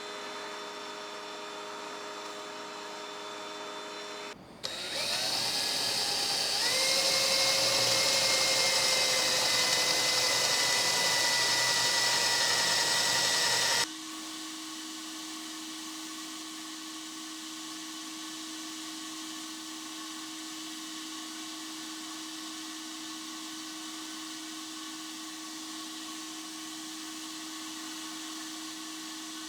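A power tool's electric motor starting up with a whine that climbs in pitch in two steps, then running steadily at its loudest for about nine seconds before stopping abruptly. Before and after it, a steady machine hum with a constant tone.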